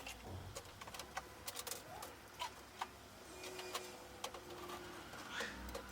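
Scattered light clicks and taps of small toys and ornaments being handled and set down on a shelf.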